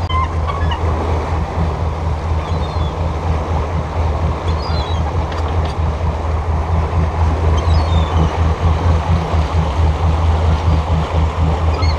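Motorboat engine running at a steady speed with a constant low drone, over the rush of its churning wake and wind. A few faint gull calls come through high above.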